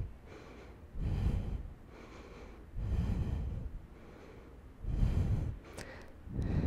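A woman breathing deeply while holding a yoga stretch: four audible breaths, about two seconds apart.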